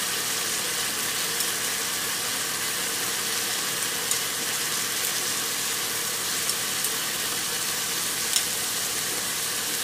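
Chickpea and boiled-egg masala frying in oil in a nonstick pan, being browned: a steady sizzle with a few faint clicks and pops.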